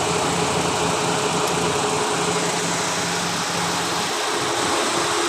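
Car engine idling: a steady running hum with constant noise.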